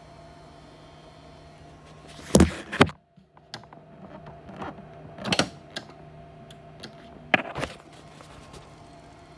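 Handling noise: a few sharp knocks and thumps against the tape deck, loudest a pair about two and a half seconds in and more near five and seven and a half seconds in, over a steady low hum.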